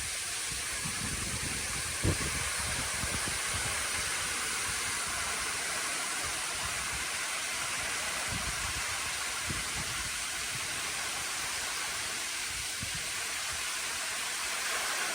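Waterfall: a steady rushing hiss of falling water, with scattered low bumps on the microphone, the sharpest about two seconds in.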